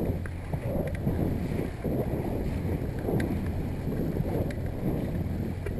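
Yamaha 70 hp outboard motor running steadily at trolling speed, about 1,200 RPM, under wind buffeting the microphone and choppy water against the hull of a small open-bow boat.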